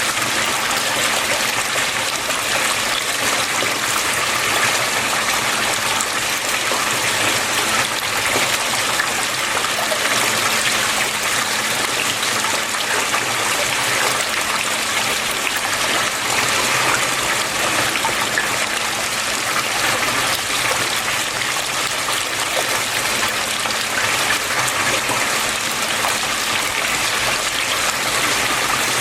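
Water flowing and splashing steadily, an unbroken rush of trickling water.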